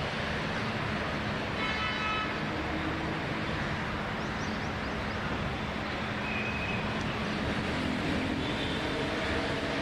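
Steady outdoor background rumble and hiss, like distant traffic, with a brief higher toot about two seconds in and a few short high tones near the end.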